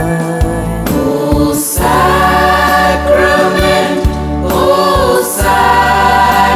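Christian devotional song: a choir singing over instrumental accompaniment with a steady beat.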